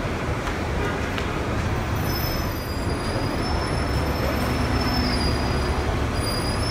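Steady rumble of city traffic and rail noise at a subway exit, with a thin high metallic squeal that sets in about two seconds in and holds.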